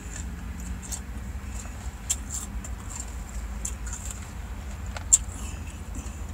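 Fork clicking and scraping in a plastic salad container, a sharp tick now and then, the loudest about five seconds in, over the steady low rumble of a car interior.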